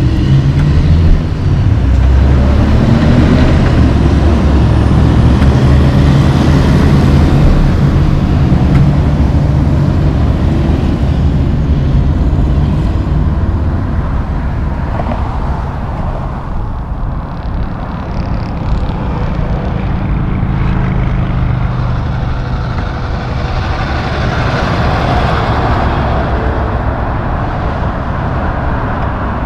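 Heavy diesel semi truck engines and road traffic going by. For about the first twelve seconds a big rig's engine is loud and low; it then falls back to general traffic noise, which swells again as another vehicle passes near the end.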